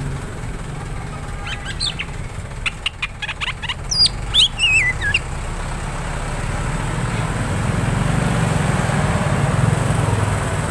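Oriental magpie-robin (kacer) singing a short burst of sharp clicks and whistled notes, ending in a falling warble, from about a second and a half to five seconds in. A steady low rumble runs underneath and grows louder after the song stops.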